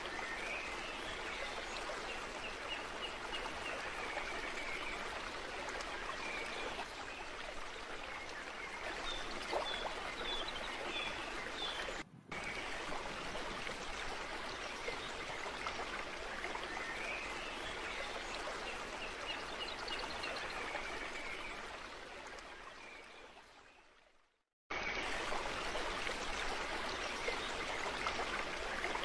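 Steady rush of flowing stream water with faint bird chirps now and then. The sound cuts out for an instant about twelve seconds in, then fades away to brief silence near twenty-four seconds and starts again at full level.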